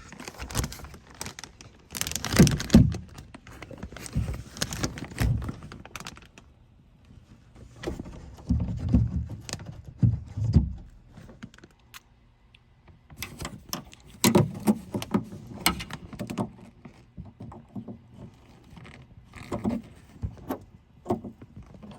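A pick being worked into a car door handle cavity to release its hidden clips: irregular clicking, scraping and knocking against the door, in several clusters with quieter gaps between, mixed with handheld camera handling noise.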